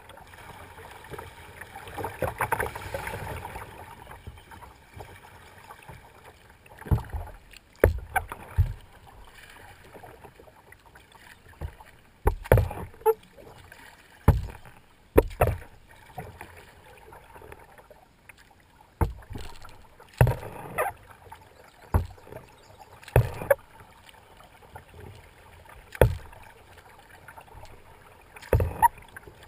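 Kayak paddle strokes in the water: about a dozen short splashes, each with a low thump, coming every one to three seconds, after a longer rush of water a couple of seconds in.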